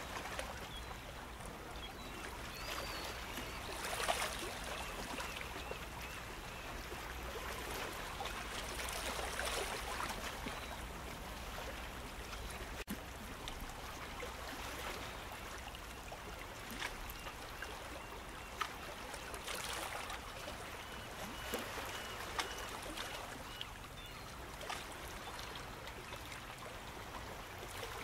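Gentle surf washing ashore: a steady hiss of water that swells about every five seconds as each wave breaks.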